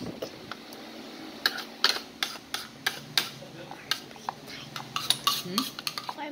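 Metal spoon clinking and scraping against a ceramic bowl while scooping ice cream: many irregular light clicks, a few with a short ring.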